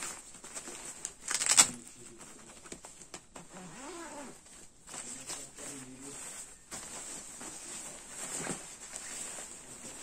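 Synthetic nylon and polyester shell of a goose-down sleeping bag rustling and swishing as it is handled and pulled open, with one loud swish about one and a half seconds in. A few faint wavering pitched sounds come in around the middle.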